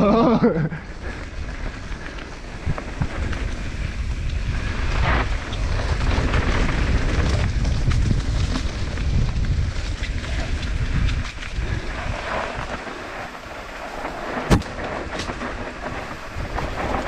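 Mountain bike rolling fast down a dirt trail: a steady low wind rumble on the microphone over the tyres crunching on dirt and leaves, with scattered rattles and clicks from the bike. Late on comes one sharp knock.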